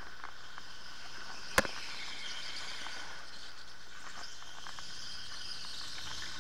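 Electric go-kart driven at speed, heard from on board: a steady high-pitched whine and tyre noise on the indoor track surface. A single sharp knock about one and a half seconds in is the loudest thing.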